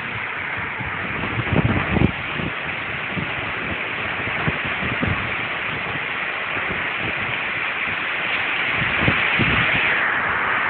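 Thunderstorm wind and rain making a steady rushing noise, with gusts buffeting the microphone in low irregular thumps; it grows a little louder toward the end.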